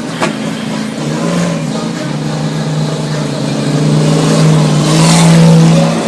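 Monster truck engine running and building up in revs, loudest about five seconds in, then easing off.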